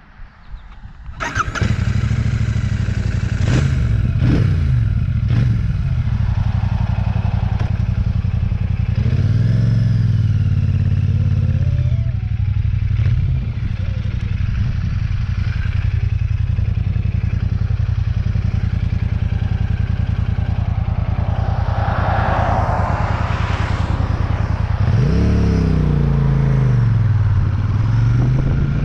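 Royal Enfield Shotgun 650's 648 cc parallel-twin engine starting about a second in, then running and revving as the motorcycle pulls away and rides off, its pitch rising and falling several times with the throttle and gear changes.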